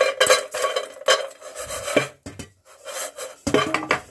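Crisp deep-fried semolina snacks being stirred and handled, rustling and scraping against each other in irregular crunchy bursts. Their dry crackle is the sign that they have fried crisp.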